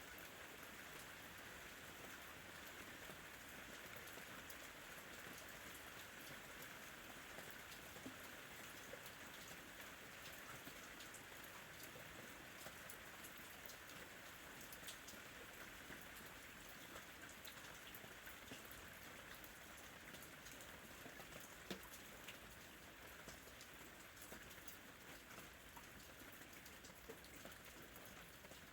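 Faint steady rain ambience: an even hiss of rainfall with scattered light drop ticks.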